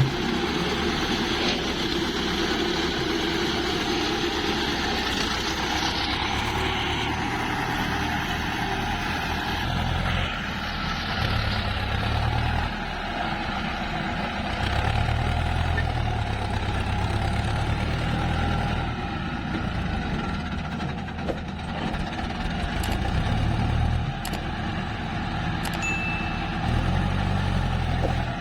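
Diesel engines of a hydraulic excavator and a tractor running steadily, the low engine note swelling and easing every few seconds.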